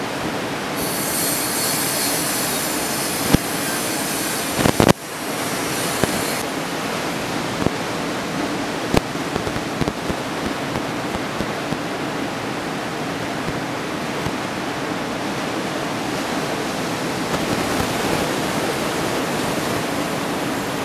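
Steady rushing noise of breaking ocean surf. A thin high hiss rides over it for the first few seconds, and a few sharp knocks cut in, two of them close together about five seconds in.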